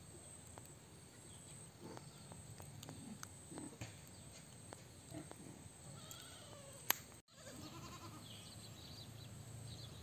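Goats bleating faintly a few times, with a single sharp click about seven seconds in.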